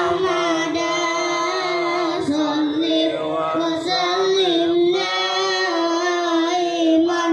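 A boy's voice singing a slow melodic line into a handheld microphone, holding long notes with only brief breaks for breath, amplified over a PA.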